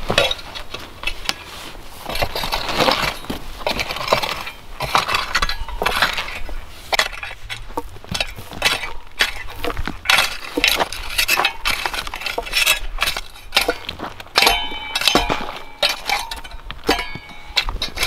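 Metal garden rake dragged through stony soil in repeated, irregular strokes, its tines scraping and clinking against stones and grit.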